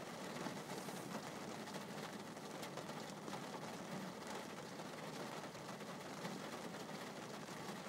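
Steady hiss of rain, with faint scattered ticks of drops hitting glass.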